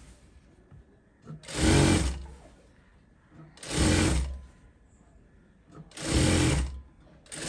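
Sewing machine stitching a sleeve seam in four short runs of about a second each, stopping briefly between them as the fabric is guided.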